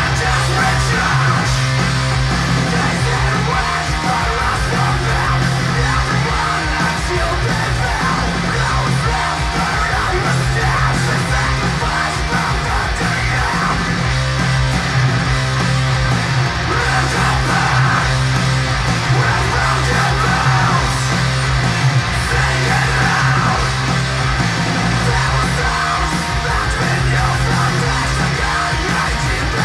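Blackened hardcore music with distorted guitars, bass and drums under shouted vocals, playing loud and without a break.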